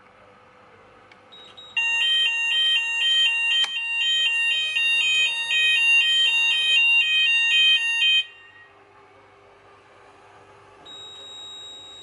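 Fire alarm sounders of an addressable fire alarm system going off in a two-tone warble, about two alternations a second, after a break-glass call point is tripped with its test key; they run for about six seconds and cut off suddenly. Near the end a steady high single-tone beep starts.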